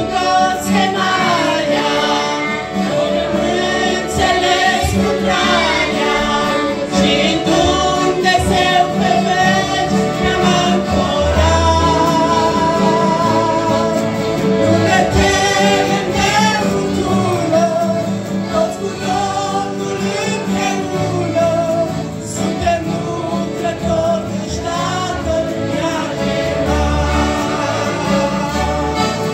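A Romanian Christian hymn sung by a woman into a microphone, with a family group of women and children singing along. Piano accordions and acoustic guitars accompany the singing, which runs on without a break.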